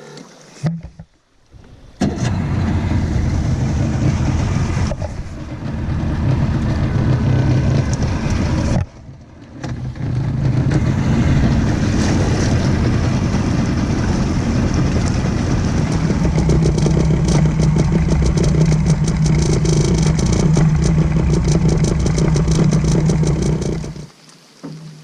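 Vehicle engine and road noise while driving: a steady low rumble with an engine hum, heard in several short clips separated by abrupt cuts.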